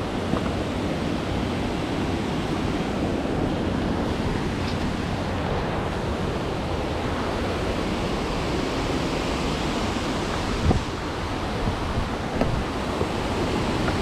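A waterfall's steady rushing noise, with a few short knocks near the end.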